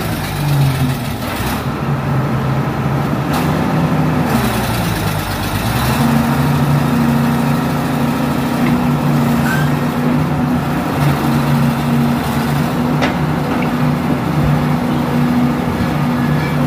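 Excavator's Isuzu 6BD1 six-cylinder diesel engine running steadily. Its note dips about four seconds in and picks back up about six seconds in, as the machine takes hydraulic load, with a few light clanks.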